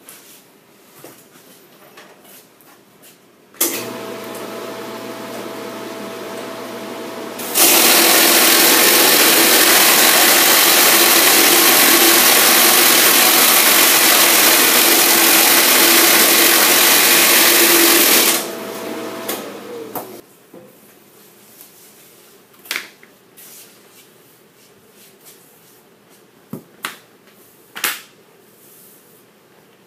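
Tread band cutter's 5 hp single-phase electric motor switching on with a clack and running with a steady hum. It then gets much louder for about ten seconds as a tire tread is fed through the cutting discs and its curved edges are trimmed off. The motor runs on briefly and winds down with a falling whine, followed by a few light knocks as the cut rubber strips are handled.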